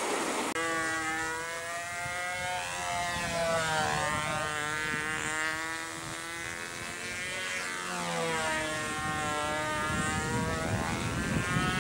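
A steady engine drone whose pitch slowly wavers up and down, starting abruptly about half a second in.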